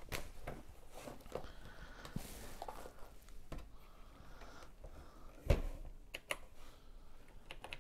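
Quiet handling of a TRS-80 Model 100 portable computer on a tabletop: faint rustles and light clicks, with one dull thump about five and a half seconds in as the computer is tilted up off the table.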